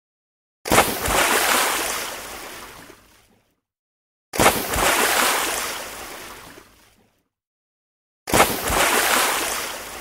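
Water splash, three times about four seconds apart: each opens with a sharp hit into the water and is followed by splashing that dies away over two to three seconds, with dead silence between.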